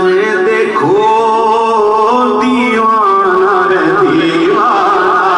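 A man singing an Urdu naat into a microphone, unaccompanied, in slow melismatic phrases. He holds long notes that waver and bend in pitch.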